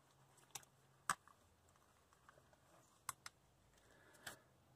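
Near silence with a few faint, short clicks and taps scattered through it: small handling sounds as a hand reaches for and takes hold of an aluminium carburetor body on a cardboard-covered bench.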